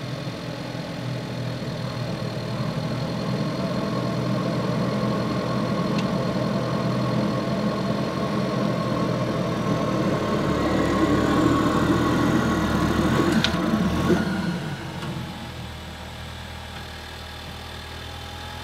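Ford Focus RS's 2.3-litre turbocharged four-cylinder engine running at low speed as the car creeps up onto drive-on ramps. It grows louder under the load of the climb, then drops back to a quieter idle near the end.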